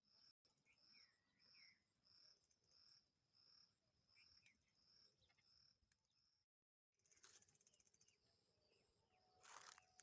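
Very faint countryside ambience: a high chirp repeating evenly, a little under twice a second, with a few short bird chirps among it. The sound drops out briefly about two-thirds of the way in, and a short rush of noise comes near the end.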